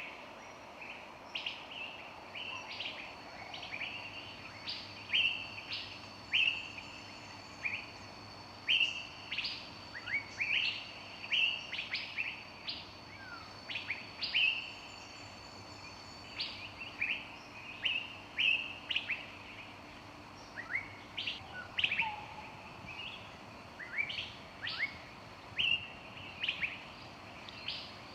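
Songbirds chirping in a forest: short, sharp, high chirps repeated in quick succession, roughly one or two a second, over a faint steady hiss of ambience.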